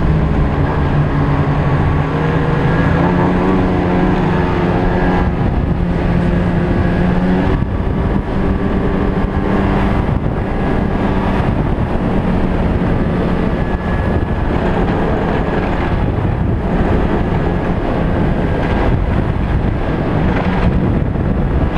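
Snowmobile engine running steadily under way along a trail, its note shifting a little with the throttle.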